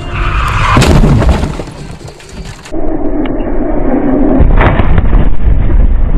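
Car collision heard from inside the car: a loud crash about a second in, then continuing loud crunching noise as the wreck moves, with a second heavy impact later on. The sound cuts off suddenly at the end.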